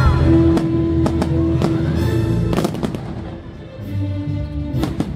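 Fireworks going off over loud show music. The sharp bangs come at irregular moments, with a quick cluster near the end, while the music holds sustained notes; the music eases a little after the middle, then comes back up.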